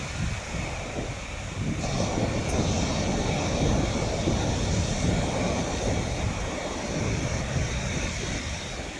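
Surf breaking and washing up the beach, with wind rumbling on the microphone.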